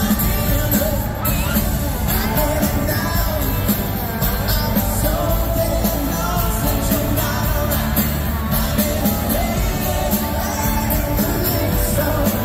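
Live pop-rock band playing a song, electric guitars and drums under a male lead vocal, through a concert PA system.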